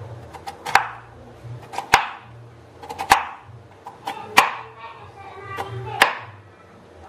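Kitchen knife cutting a peeled potato into chunks on a wooden cutting board: five sharp knocks of the blade hitting the board, about one every second and a bit, with lighter cutting clicks between them.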